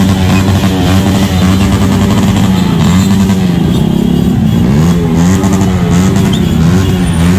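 Many motorcycle engines running and revving in slow, crowded street traffic, a continuous loud drone with rising and falling engine pitches.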